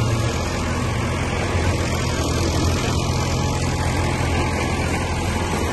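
Diesel engines of two farm tractors, a Massey Ferguson 375 and a Ghazi 65, running hard under load as they pull against each other on a chain: a steady, loud low drone with no let-up.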